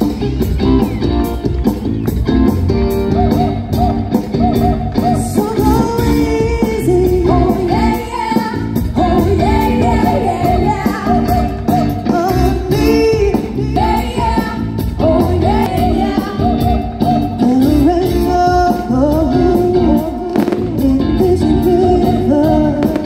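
Rock-pop song with a singer and guitar, playing loudly.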